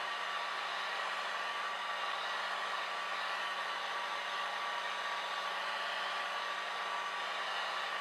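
Small handheld hair dryer running steadily, a constant rush of blown air with a faint steady motor whine.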